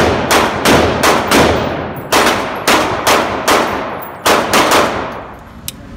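Pistol shots on an indoor range, about a dozen in quick, uneven succession, each echoing off the range walls. They stop about five seconds in.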